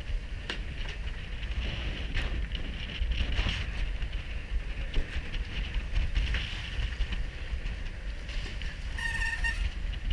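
Wind buffeting the microphone on an open boat deck, with choppy water sloshing against the hull and a few small knocks. Near the end, a brief high squeak.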